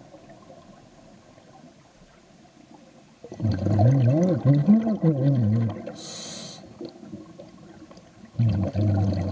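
Scuba regulator breathing underwater: about three seconds in, a long exhale of bubbles with a warbling rumble, then a short inhale hiss through the regulator, and another bubbling exhale starting near the end.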